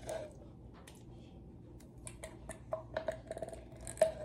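A utensil scraping and knocking against the inside of a tin can while emptying canned pumpkin, a scatter of light taps with a short metallic ring that come quicker in the last two seconds.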